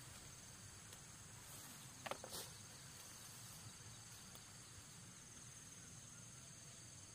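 Faint, steady chirring of insects, with a brief soft rustle about two seconds in.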